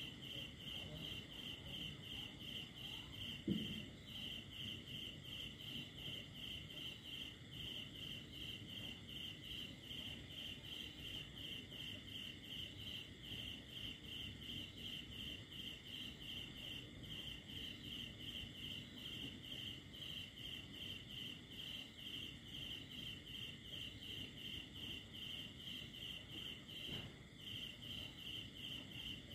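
Crickets chirping in a steady, even rhythm of about three chirps a second, over a fainter continuous trill. A single brief low thump about three and a half seconds in.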